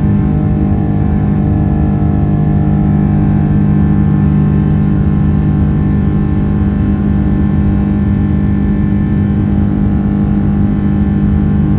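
Boeing 777-300's Rolls-Royce Trent 800 turbofans at climb thrust, heard from inside the cabin over the wing: a loud, steady drone with a strong low hum and several steady tones above it.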